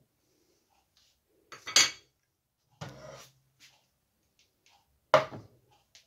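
Kitchen clatter of a metal hand grater and a nonstick pot knocking on a wooden cutting board. There is a sharp clack about a second and a half in, a duller knock near three seconds, and a loud clunk about five seconds in as the pot is set down on the board.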